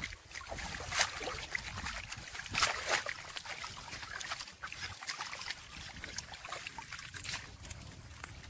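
Wet retted jute fibre being washed by hand in pond water: irregular sloshing and splashing, with a few sharper slaps on the water about a second in, near three seconds and near seven seconds.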